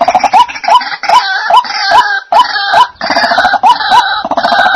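White-breasted waterhen calling: a steady run of short repeated notes, two to three a second, overlaid with harsh croaking "ruak ruak" calls.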